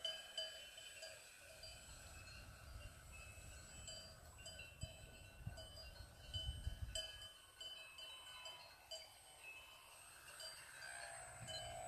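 Faint cowbells clanking irregularly over gusts of wind rumbling on the microphone. Near the end, the model plane's electric motor whines faintly and falls in pitch as it is throttled back for landing.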